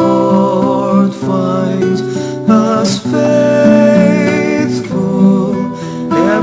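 Acoustic guitar music playing steadily, with a wavering melody line over the strummed chords.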